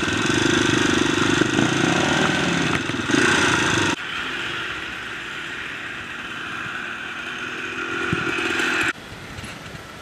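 Dirt bike engine running at low speed. It is loud for about four seconds, drops suddenly to a quieter run that builds slightly, then drops sharply again near the end.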